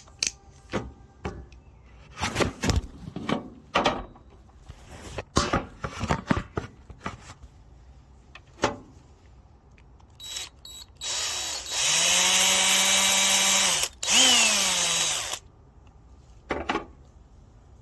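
Handling knocks and clicks, then a cordless power drill running steadily for about three seconds, backing a screw out of the bike lock's clamp. Its pitch falls as it winds down near the end.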